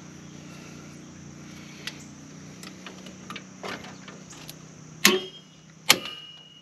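Small metallic clicks and scrapes of a drum brake shoe return spring being worked into place with a brake spring tool on a Jeep Wrangler TJ rear brake. About five and six seconds in come two sharp metallic snaps as the spring seats, and the second one rings briefly.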